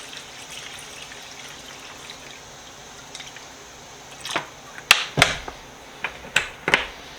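Faint steady hiss, then a run of sharp clicks and knocks from about four seconds in, with small liquid drips, as the wrench parts are handled in a container of rust-remover solution.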